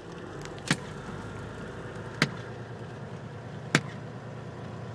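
Windshield wipers sweeping a rain-wet windshield, knocking sharply three times at an even pace of about one stroke every second and a half, over the steady hum of the moving vehicle's cab.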